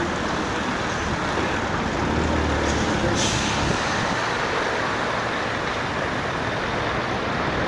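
Heavy-haulage truck and multi-axle low-loader trailer moving slowly past, a steady mix of diesel engine and tyre noise, with a low rumble swelling about two seconds in and a short hiss just after three seconds.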